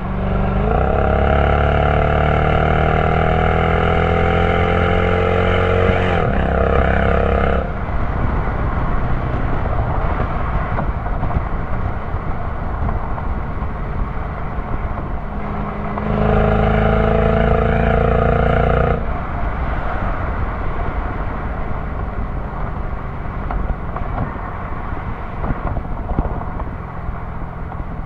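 Supercharged 5.4-litre V8 exhaust of a 2006 Mercedes-Benz CLS55 AMG, heard at the tailpipes at highway speed. It pulls hard under heavy throttle for about seven seconds, rising steadily in pitch, then drops back to a cruising drone. A second, shorter burst of throttle comes about sixteen seconds in, holds a steady pitch for about three seconds, and falls back to cruise, with wind and road noise throughout.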